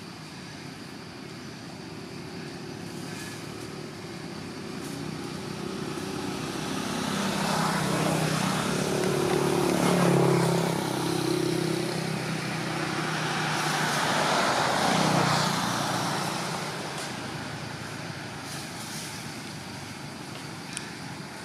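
Road traffic: a motor vehicle passing, its engine growing louder to a peak about halfway through, with a second pass a few seconds later whose pitch drops as it goes by, then fading back to a steady background hum.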